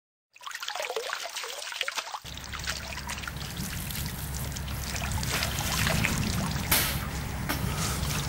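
Water trickling and splashing in a lake's shallows after a brief silence, with a steady low rumble joining about two seconds in.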